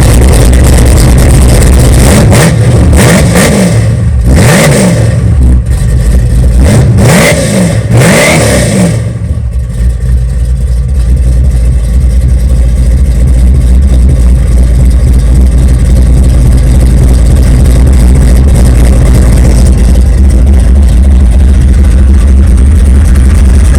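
1964 Chevelle's engine breathing through a new 3-inch dual Flomaster exhaust, blipped in several quick revs that rise and fall, then settling into a steady idle about nine seconds in. It is loud.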